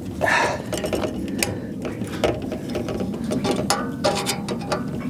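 Hand screwdriver doing up the Phillips screws of a yagi antenna's plastic element-to-boom clamps: irregular clicking and a scrape, tool and screw working against the clamp and aluminium boom.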